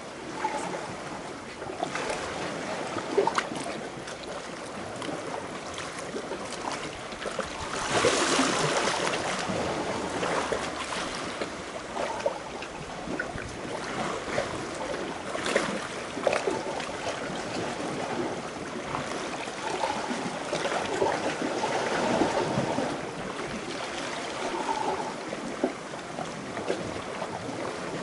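Seawater lapping and sloshing against the rocks right beside the camera, in irregular surges with small splashes and crackles, the biggest surge about eight seconds in.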